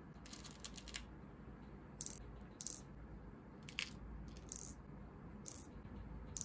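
Small plastic pearl beads clicking against metal tweezers, each other and a plastic bead box as they are picked out and set into a resin heart shaker: a quick rattle of clicks in the first second, then single sharp clicks about once a second.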